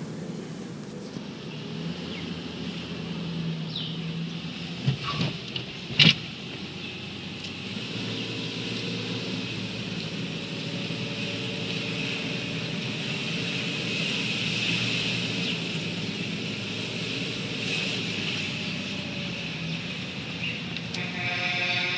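Vehicle engine and road noise heard from inside the cabin while driving, a steady hum with tyre hiss. There are two sharp knocks, the loudest at about six seconds in.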